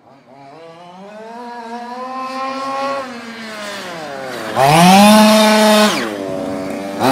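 Two-stroke gas engine of a fifth-scale RC buggy run hard at the end of its break-in. The engine note climbs steadily for about three seconds and eases off. About four and a half seconds in it jumps to a loud high-revving whine for over a second, drops away, then gives a short throttle blip near the end.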